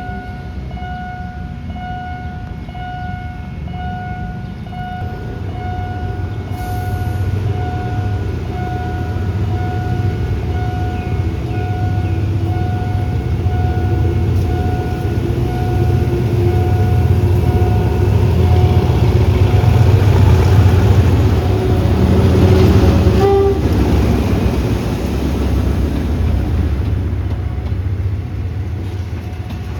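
A level-crossing warning signal pulses about once a second while a train approaches and passes. The heavy rumble builds to its loudest about 20 seconds in and then eases. A short horn sounds about 22 seconds in.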